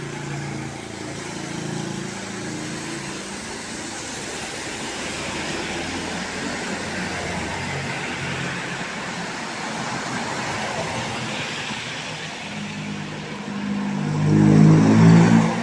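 Road traffic: a steady hiss of passing vehicles, then a louder engine as a vehicle goes close by about fourteen seconds in.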